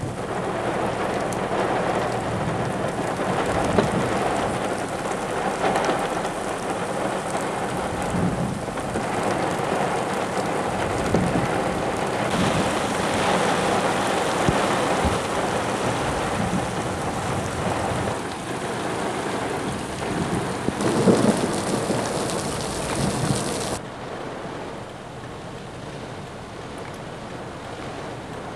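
Heavy rain pouring down in a severe thunderstorm, a dense steady hiss with rumbles of thunder swelling through it, the loudest a little before the end. Near the end the rain drops abruptly to a quieter hiss.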